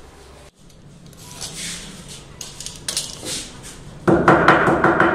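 Small steel hammer tapping and scraping on the wooden cushion rail of a snooker table as the cloth is worked. A few scattered light taps come first, then a louder, rapid run of knocks and clatter starts about four seconds in.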